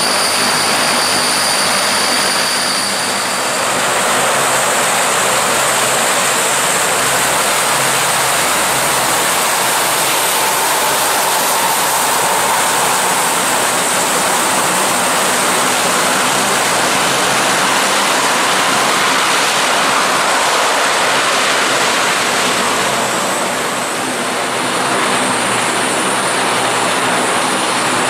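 Turboprop engines and propellers of military transport aircraft taxiing: a loud, steady engine and propeller noise, with a high turbine whine that fades out about three seconds in. The first aircraft is a twin-engined Transall C-160, then a four-engined Lockheed C-130 Hercules.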